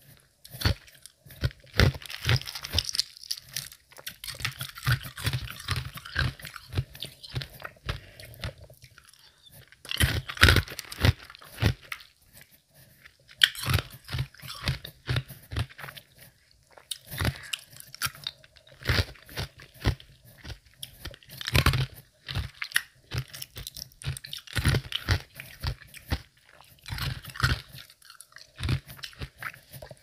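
Semi-melted ice being bitten and chewed with a soft to medium crunch, in runs of rapid crunches separated by short pauses.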